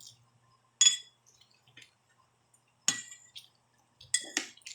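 Tableware clinking at a meal: about four sharp, ringing clinks of utensils or glass against dishes, one about a second in, one near three seconds, and two close together near the end.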